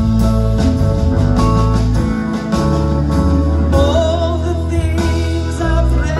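Live band playing through a club PA: electric guitars, bass and drums, with a woman's lead vocal coming in about four seconds in, held notes wavering with vibrato.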